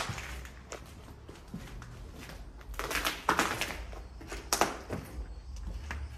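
Footsteps scuffing and crunching over debris on a hard floor: irregular crunches, bunched together about three seconds in, over a low steady rumble.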